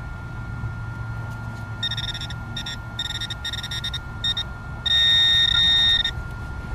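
Metal-detecting pinpointer probe beeping in short bursts as it closes in on a small buried target, then sounding one long steady tone for about a second as it sits on the target. Low wind rumble underneath.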